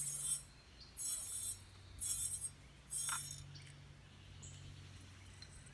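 Old incandescent pool light bulb shaken by hand, giving four short, bright glassy rattles about a second apart: the loose, broken filament rattling inside the glass, the sign of a blown bulb.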